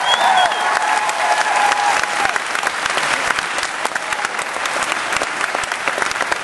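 Audience applauding, with a few cheering voices over it in the first two seconds.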